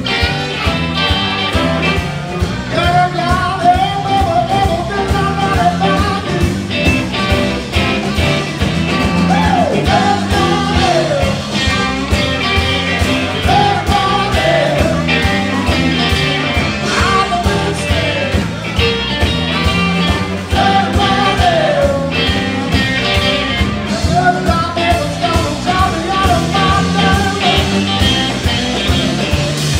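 Live blues-rock band playing, with electric guitars, saxophone, electric bass and a drum kit, and a regular beat.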